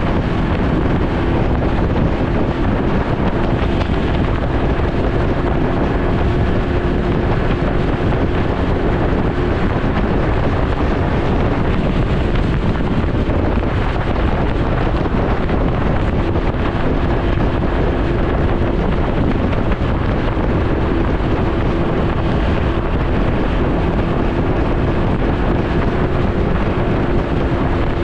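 Wind rushing over the microphone while riding a Can-Am Ryker 900, with the steady hum of its three-cylinder engine underneath.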